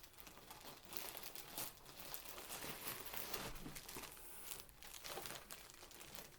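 Plastic wrapping crinkling as a packaged fabric bundle is handled and pulled from its packaging, with many small irregular crackles.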